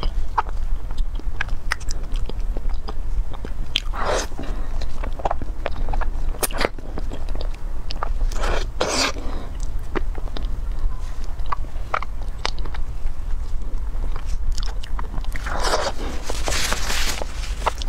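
Close-miked eating sounds of a person biting and chewing a chocolate-coated cake: wet chewing and small mouth clicks, with louder bites or smacks about 4 s in, about 9 s in, and near the end. A constant low hum runs underneath.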